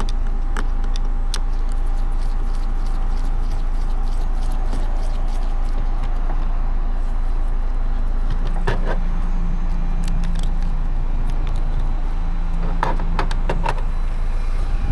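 Scattered small clicks and clatters of plastic trim pieces and screws being handled and pulled apart by hand, over a steady low rumble. The clicks come in two clusters, one about halfway through and one near the end.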